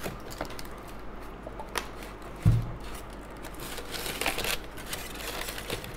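Unpacking handling noise: cardboard box flaps and polystyrene packing blocks rustling and scraping as an iron and its cord are lifted out, with one dull thump about two and a half seconds in.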